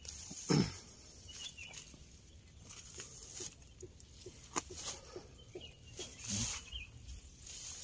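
Leaves and vines rustling and brushing against a handheld camera moving through trellised melon plants, with scattered knocks and a low thump about half a second in.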